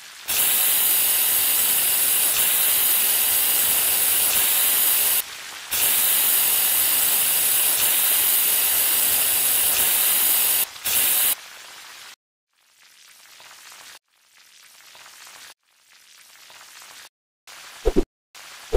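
Aerosol spray can hissing in two long bursts of about five seconds each, then a short third burst; after that only fainter, broken stretches of hiss, and a brief pitched blip near the end.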